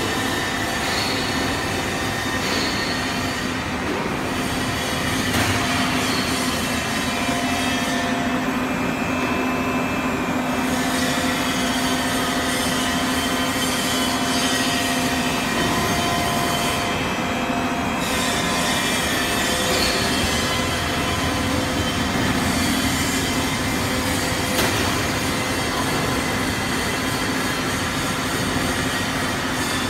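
ABS-PC plastic sheet extrusion line running: a steady, dense machine noise with several steady whining tones through it.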